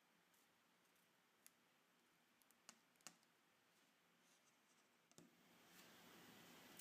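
Near silence broken by a few faint, sharp clicks from small parts and tools being handled during a phone repair.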